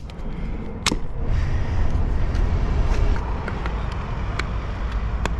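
Sharp plastic clicks from handling a van's clear side indicator lens and twisting its bulb holder into place: one at the start, one about a second in and one near the end. A steady low rumble runs underneath from about a second in.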